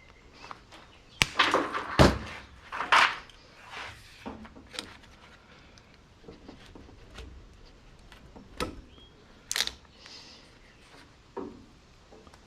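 Irregular knocks and clatter of scrap wire being handled and worked, loudest in a cluster between about one and two seconds in, then scattered single sharp knocks.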